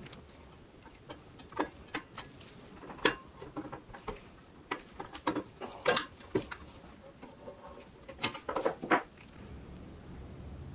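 Irregular sharp clicks and metallic taps as a small C-clamp is handled and tightened against the pressed-steel cab of a 1960 Tonka toy truck, with a quick cluster of them about eight to nine seconds in. A low steady hum follows near the end.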